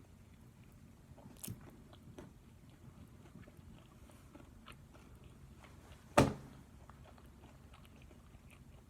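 Close-up mouth sounds of a person biting and chewing a KFC fried chicken sandwich, with scattered small crunches and one loud sharp sound about six seconds in.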